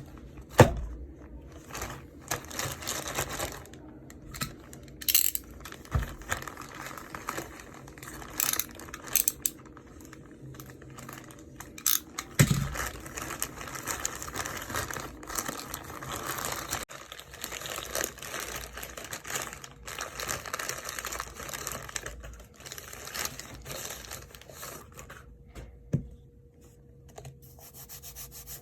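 Packaging being handled and opened by hand: irregular crinkling, rustling and tearing, with a few sharp knocks and clicks as the box and its contents are set down or bumped.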